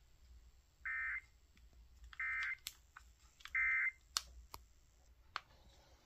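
Three short bursts of warbling EAS digital data tones, the end-of-message code that closes an emergency alert, coming from a Kaito KA110 portable radio's speaker about a second and a half apart. A few sharp clicks follow near the end as the radio is handled.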